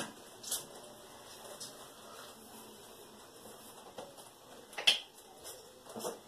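Quiet bathroom room tone with a few short clicks and taps from handling a plastic conditioner bottle, the loudest just before five seconds in.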